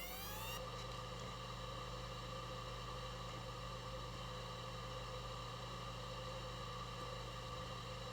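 A faint, steady machine-like hum and whir made of several held tones. In the first half-second, rising pitch glides settle into it, like something spinning up to speed.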